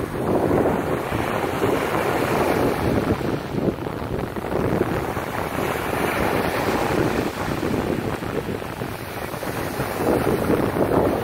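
Small waves breaking at the water's edge and washing up over sand, a steady surging rush of surf, with wind buffeting the microphone. The surf swells louder near the end as a wave breaks close in.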